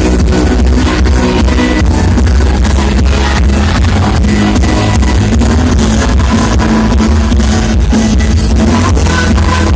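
Loud music with heavy bass and a steady beat.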